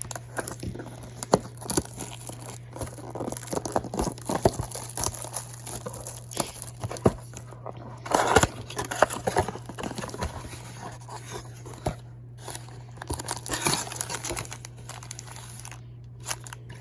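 Crinkling and tearing of packaging as a blaster box of trading cards is opened and its packs handled: irregular crackles and taps, with louder rustles about eight and a half and thirteen and a half seconds in. A steady low hum runs underneath.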